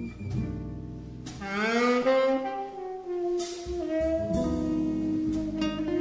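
Jazz combo recording: a tenor saxophone plays a slow ballad melody, sliding up into a long held note about a second in, over a rhythm section of guitar, bass and drums.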